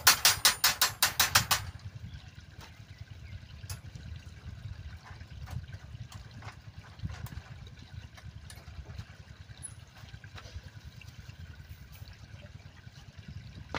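Hand-tying a rebar beam cage: sharp metallic clicks of tie wire and a tie hook on the steel bars, opening with a fast run of about a dozen clicks, then scattered lighter clicks over a low steady rumble.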